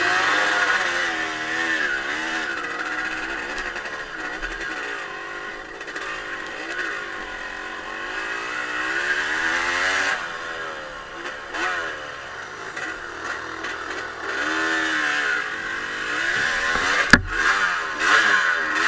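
Off-road motorcycle engine running under varying throttle, its pitch rising and falling again and again. There is a sharp knock about 17 seconds in.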